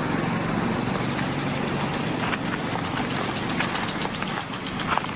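An engine idling steadily, with a low, even hum.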